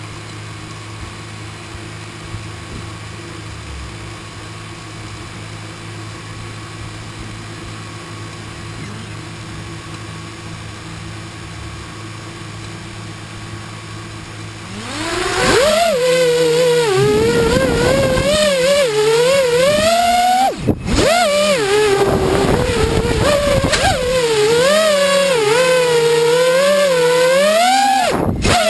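FPV quadcopter's electric motors: a steady low hum for about fifteen seconds, then a loud whine whose pitch swings up and down with the throttle. It cuts out abruptly twice for a moment.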